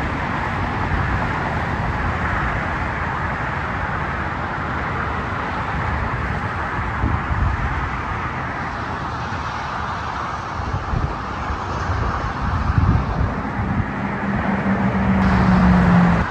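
Diesel locomotive idling: a steady engine rumble with a hiss above it. A steady low hum comes in near the end.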